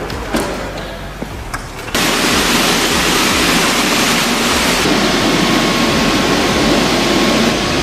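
Loud, steady rush of jet engine noise from a Saab JAS 39 Gripen, starting abruptly about two seconds in. A faint steady whine joins it about halfway through.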